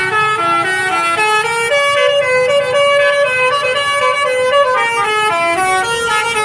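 Basuri 'telolet' multi-tone bus horn playing a tune: a loud, continuous run of stepped notes changing several times a second.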